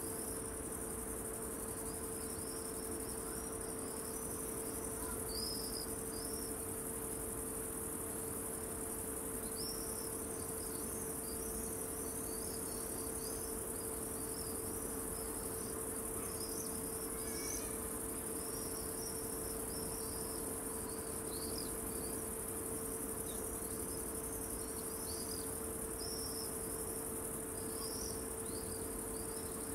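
Evening ambience of insects: a steady high-pitched cricket chorus with many short scattered chirps, over a faint steady hum.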